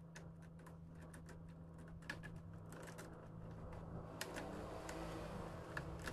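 Faint light clicks and taps of plastic parts being handled on a DX Tridoron toy car, over a steady low hum. A soft rustling scrape joins about four seconds in.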